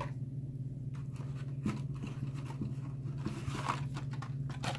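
Rustling, scraping and light clicks of carded plastic blister packs and cardboard as a stack of Hot Wheels cards is pulled out of a cardboard shipping case, busiest toward the end, over a steady low hum.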